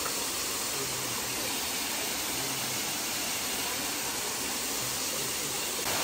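Steady rush of a waterfall.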